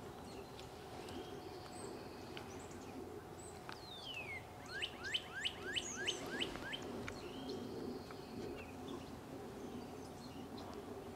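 Wild songbirds calling: a single falling whistle about four seconds in, then a quick run of about eight rising chirps, with scattered short notes around them. A steady low hum runs underneath.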